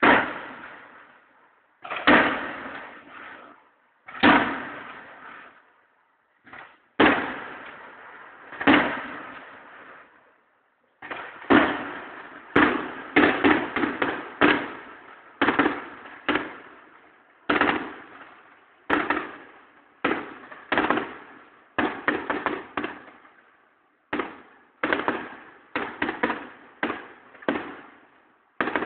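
Fireworks display: aerial shells bursting in the sky, each a sharp bang that dies away over about a second. A handful of widely spaced bangs come first, then from about eleven seconds in a rapid string of several a second.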